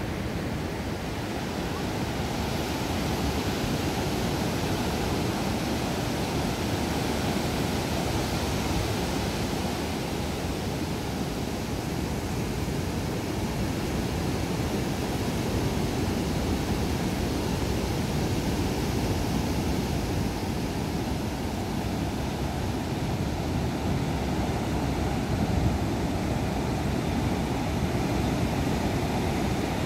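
Ocean surf on a sandy beach: a steady, even rushing noise with no separate wave crashes standing out.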